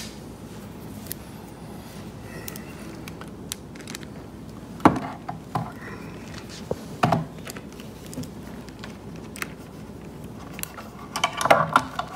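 Scattered light knocks and clicks of a wooden stool and its screws being handled, with two sharper knocks about five and seven seconds in and a quick run of clicks near the end.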